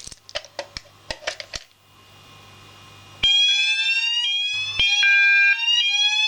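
Several fire alarm sounders go off together about three seconds in, each sweeping up in pitch and resetting, out of step with one another: a fire alarm system sounding on test. Before they start, a few short clicks.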